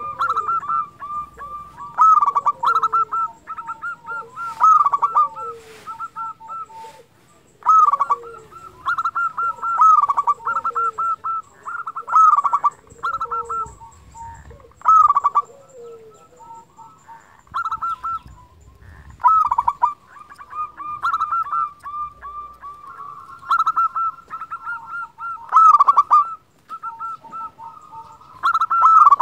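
Zebra dove (perkutut) singing: phrase after phrase of quick staccato coos, each phrase a short cluster of notes with a lower falling note under it, repeated every second or two with a brief lull about halfway through. It is a persistent, vigorous singer of the kind kept to call other perkutut into song.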